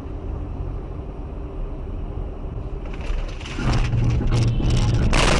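Car engine and road noise, a steady low rumble that swells about three seconds in into a much louder rushing noise with a low hum, and grows louder again just before the end.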